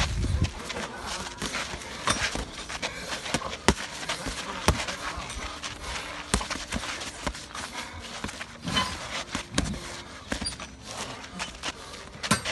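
Irregular slaps and thuds of padded boxing gloves landing during sparring, with feet shuffling on dry dirt and grass.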